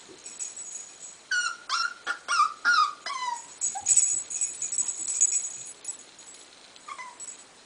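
Young puppy whimpering: a quick run of about five short, high whines, each falling in pitch, then a fainter whine near the end. The puppy is balking at stepping down a stair, and the whines are its anxious reluctance.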